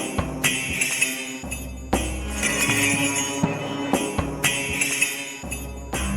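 Ritual-style percussion music: a jingling, shaken percussion pattern with sharp hits over a low drone, the pattern repeating about every two seconds.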